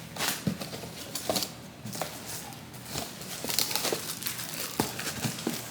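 Packaging crinkling and rustling, with scattered light clicks and knocks as the appliance's plastic parts are handled and taken out of the box.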